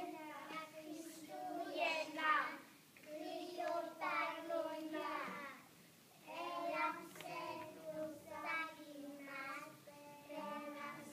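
A group of young children singing a song together, in phrases with a short break about six seconds in.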